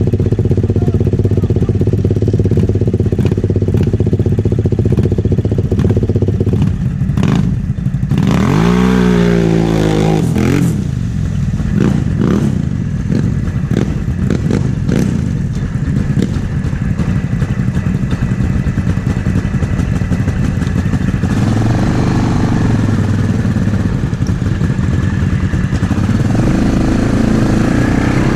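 Snorkeled ATV engine running under the rider, revving up with a sharp rise in pitch about eight seconds in and again briefly later, with clatter and knocks as the quad crosses rutted mud.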